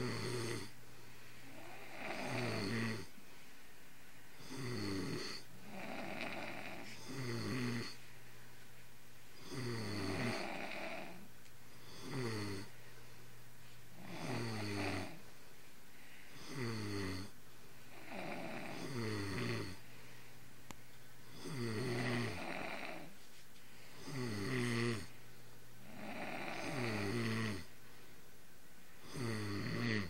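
A man and a young boy snoring in their sleep, about one snore every two and a half seconds. Each snore has a low buzz with a breathy hiss above it.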